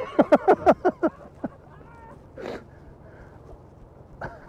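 A man laughing: a quick run of short, falling 'ha's at the start, a breathy snort about halfway, and another run of laughter near the end.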